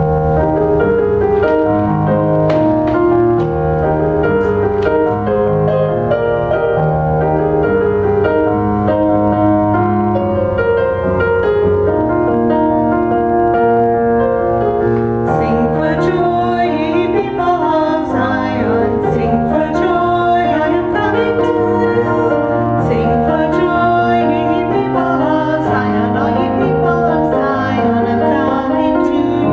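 Piano playing a slow accompaniment, with a small group of voices singing along in the second half.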